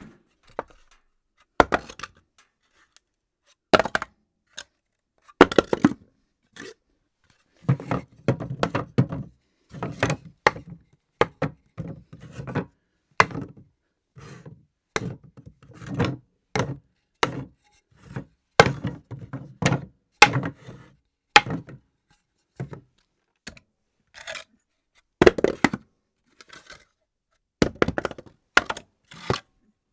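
Objects dropped onto a hard floor, one after another: a long series of sharp knocks and thuds with gaps between them, a few followed by quick runs of smaller bounces.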